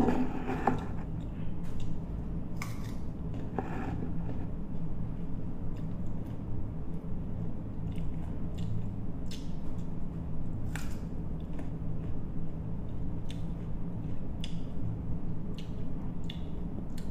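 Close-up biting and chewing of crunchy mango slices: scattered crisp crunches and wet mouth clicks over a low steady hum.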